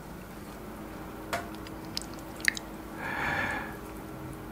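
Lobster tail meat being dipped and turned in a thick spicy sauce in a glass dish: a few light clicks, then a short wet squelch about three seconds in.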